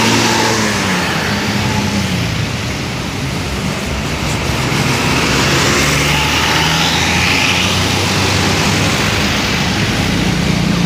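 Tour bus engines running as a convoy of buses passes, over steady road traffic noise; an engine tone falls in pitch over the first couple of seconds.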